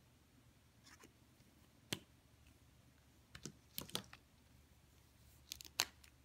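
Light clicks and taps of plastic water brush pens being handled and set down on a desk, scattered at uneven intervals, with a sharp one about two seconds in and a cluster near the end.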